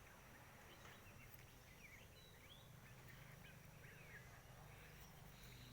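Near silence with faint background birds chirping: scattered short chirps over a low steady hum.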